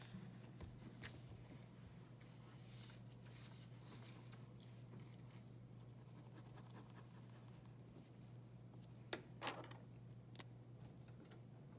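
Faint scratching of a drawing tool on paper, stroke after stroke, over a low steady room hum, with a sharper, louder scrape about nine seconds in.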